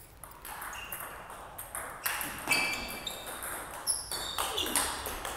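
Table tennis rally: the ball clicking sharply off the paddles and the table, about two hits a second, starting about two seconds in.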